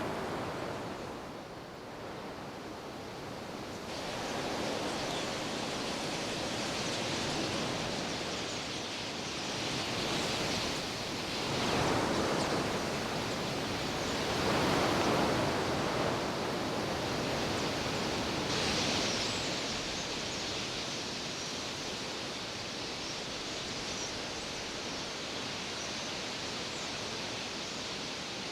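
The rushing whir of a huge flock of red-billed quelea wingbeats, a dense roar of wings that swells and fades several times as the flock sweeps past.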